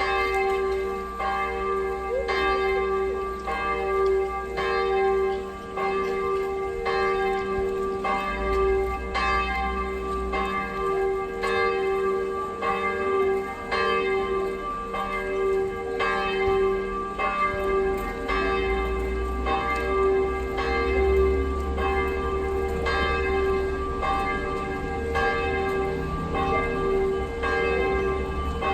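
Several large church bells swinging and pealing together, their strikes overlapping about once or twice a second over a continuous ringing hum of several pitches.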